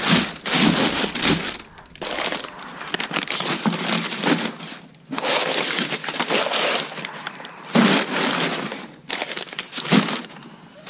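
Crumpled kraft packing paper crinkling and rustling in loud bursts with short pauses, as it is pulled out of a cardboard shipping box.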